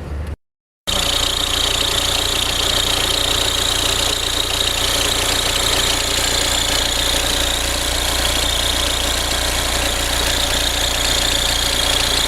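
Audi A4 B6 1.9 TDI four-cylinder diesel engine idling steadily, with a steady high whine over the engine; the noise the mechanic suspects comes from a faulty belt tensioner. The sound cuts out briefly about half a second in, then runs on unchanged.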